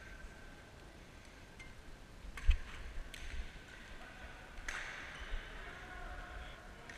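Badminton play: a few sharp racket hits on the shuttlecock, the first about two and a half seconds in, another about a second later and a third near five seconds, with one heavy thump of a footfall on the court among them.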